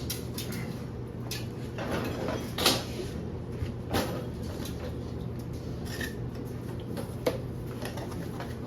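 A box of parts being unpacked by hand: scattered knocks, scrapes and rustles of packaging, over a steady low hum.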